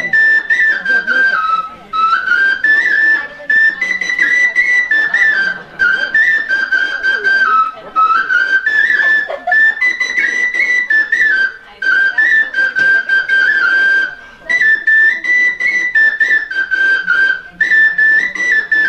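Bansuri (Indian transverse bamboo flute) playing a solo melody of stepped notes with small slides between them, in phrases broken by short pauses.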